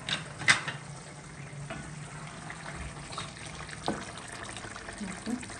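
A wooden spoon stirring a simmering zucchini stew in a stainless steel pan, with wet liquid stirring sounds. There are a few light knocks of the spoon against the pan near the start and again about four seconds in.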